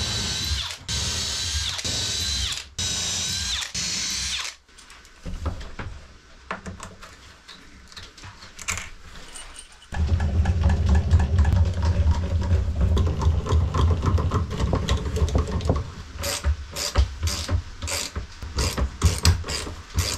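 Cordless drill boring small pilot holes up into a wooden sill, running in short spells with two brief stops, for the first four and a half seconds. From about ten seconds in comes a louder, lower, heavier tool sound as the lag bolts are driven in, with a run of quick clicks near the end.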